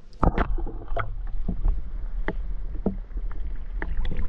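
Muffled low rumble with a series of irregular knocks and clunks, the first the loudest: a GoPro being handled and lowered under the water.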